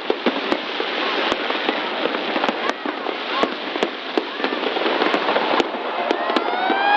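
Fireworks display going off: a dense crackling wash with sharp bangs every second or so. Crowd voices shout and call over it, louder near the end.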